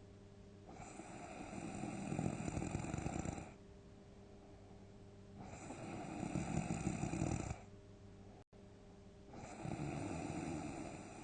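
A sleeping person snoring heavily: three long snores about four seconds apart, each lasting two to three seconds and swelling as it goes.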